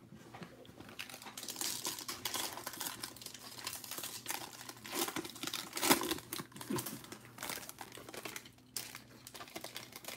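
Foil wrapper of a basketball trading-card pack crinkling and tearing as it is ripped open by hand, loudest about six seconds in.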